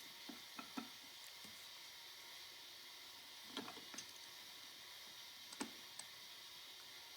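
Faint, scattered clicks and light taps of small metal parts being handled on a Pathé phonograph's spring motor during reassembly. A few come close together in the first second, then pairs about halfway and past the middle, over a steady low hiss.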